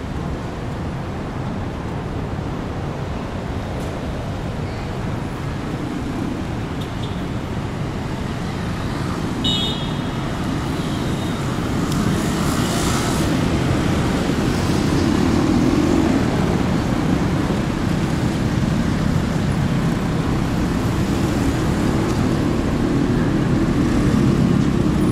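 City street traffic: cars and other road vehicles running and passing, a steady rumble that grows louder in the second half. A short high-pitched beep sounds about nine seconds in.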